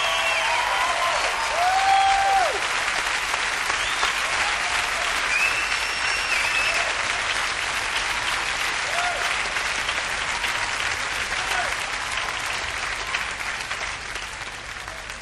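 A large audience applauding, with scattered cheers and whoops, gradually fading down.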